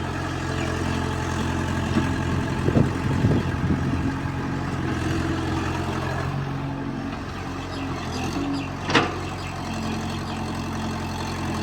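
EX70 excavator's diesel engine running steadily, with a few knocks about three seconds in and a single sharp knock later on.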